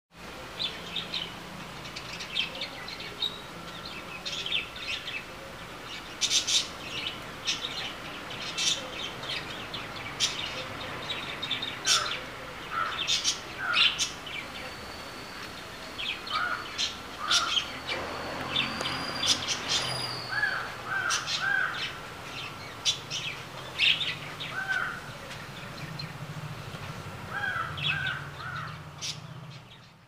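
Several birds chirping and calling in overlapping short calls over steady background noise. From about two-thirds of the way in, a repeated call comes in groups of two or three.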